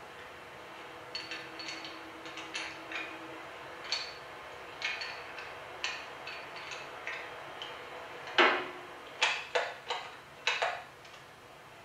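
Metallic clicks and ticks of a scoped bolt-action rifle being handled, with a handful of louder sharp clacks near the end as the bolt is worked.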